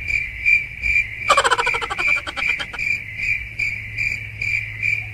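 A chorus of shrill calling, like crickets or frogs at night, pulsing a little over twice a second. A rapid rattling trill cuts in about a second in and stops near the three-second mark.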